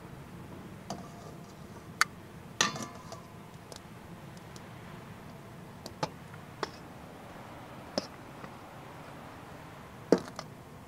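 Metal kitchen tongs clicking and clinking against stainless steel mixing bowls while pieces of fish are dipped and dredged: about seven sharp taps, one with a brief metallic ring, the loudest near the end.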